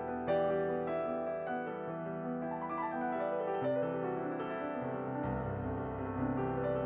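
Background music: a gentle piano melody over sustained accompaniment.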